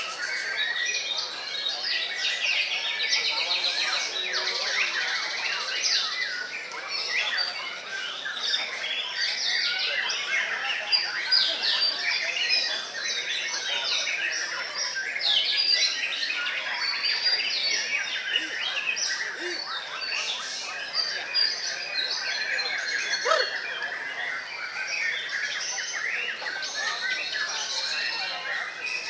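Many white-rumped shamas singing at once: a dense, unbroken tangle of overlapping whistles, chirps and rattling phrases with no pause.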